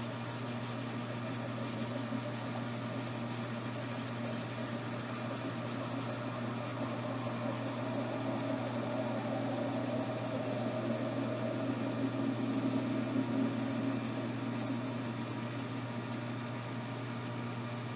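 Metal lathe running with a steady hum while a high-speed steel tool cuts the end of a long-overhanging bar of O1 tool steel. The cutting noise swells a little through the middle, then eases. No chatter is plain.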